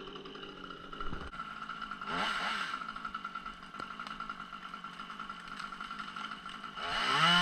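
Two-stroke chainsaw idling, revved up briefly twice: once about two seconds in and again, louder, near the end.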